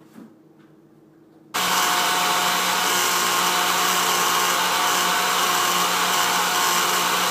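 Electric blender switched on about a second and a half in, its motor running at a steady speed as it blends a milkshake, with a constant low hum under the whirr.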